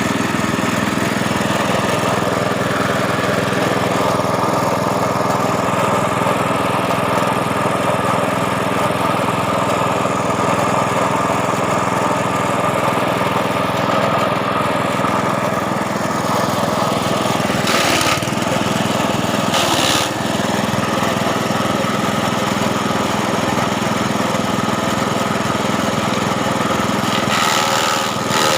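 Small brush-cutter engine running steadily at speed, driving a homemade grinding mill. Two brief rushing noises break in about two-thirds of the way through.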